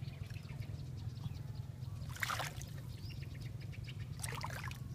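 Hands splashing in shallow muddy water around a woven fish trap, with two short splashes, about two seconds in and near the end, over a steady low hum.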